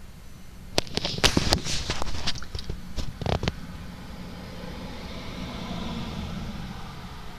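A quick run of sharp clicks and knocks in the first few seconds, then a passing vehicle's steady rushing sound that swells and fades.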